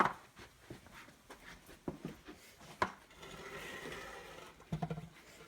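Scattered light knocks and clatter of fish and tools being handled on a work surface while filleting is set up, with a soft rubbing sound about three seconds in.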